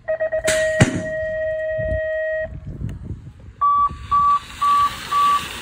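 BMX start gate sequence: a quick string of electronic pulses runs into a long steady buzzer tone, and within the first second the metal gate drops with two loud clangs. Past the midpoint comes a run of short high beeps, evenly spaced at about two a second.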